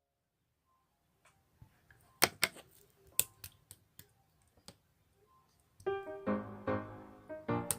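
Slime being pressed and squished, giving sharp popping clicks, a few at a time, starting about two seconds in. Piano background music comes in near the end, with the popping continuing over it.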